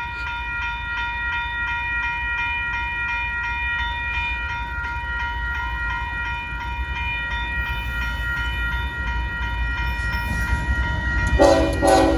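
Union Pacific local freight train approaching, its low rumble growing louder under a steady high tone that holds throughout. A louder blast of tones comes near the end.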